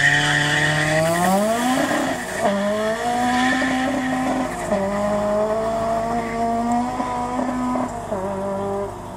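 Renault Mégane RS and a rival hatchback accelerating hard down a drag strip from the launch, engines revving up through the gears, each climb in pitch broken by a drop at an upshift, three times. The engine sound falls away near the end as the cars finish the run.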